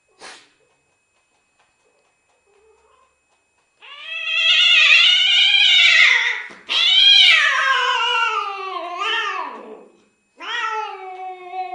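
Domestic cat yowling in long drawn-out calls: the sexual calling of a cat in heat. A short click comes first, then three long yowls, the second and third sliding down in pitch.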